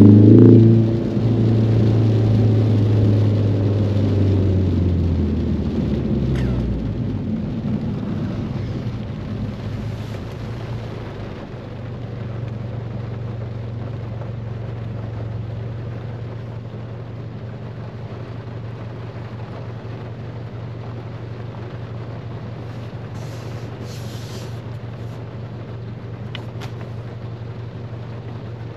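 Ford Mustang engine accelerating with rising pitch, dropping suddenly about a second in as it shifts up, pulling steadily for several seconds, then settling to a weaker steady low drone. An even hiss of rain and wet road runs underneath.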